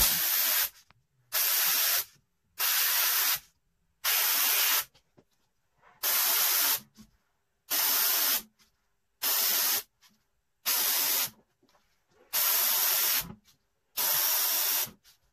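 Airbrush spraying paint in short bursts of hiss, about ten in a row roughly a second and a half apart, each lasting well under a second, as rivets are shaded one after another through a circle stencil.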